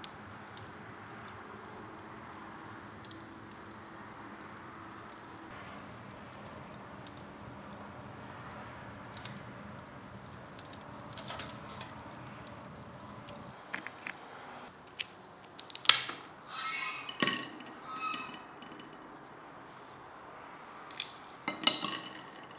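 Wood fire crackling softly in a stove's firebox, a steady hiss with scattered small pops. From about halfway on come sharp cracks of walnut shells being broken by hand and clinks of shells and nuts against clay dishes, some ringing briefly.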